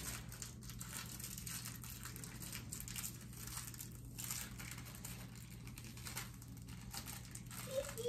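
Faint, irregular scratching, crinkling and light clicks of hands handling a light switch and its small screws while fitting it into a metal electrical box.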